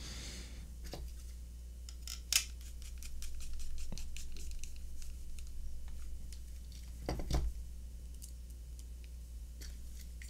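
A 1.5 mm hex driver turning short screws into a 3D-printed plastic case: faint scratching and light clicks, with a louder knock about two seconds in and another about seven seconds in.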